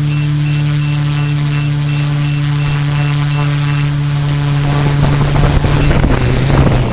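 Multirotor drone's LD Power MT4010 475 KV motors and 13-inch carbon propellers humming steadily as it descends. About five seconds in a rushing noise from the propeller wash builds as the drone comes down onto the ground, and right at the end the motor hum cuts off as it lands.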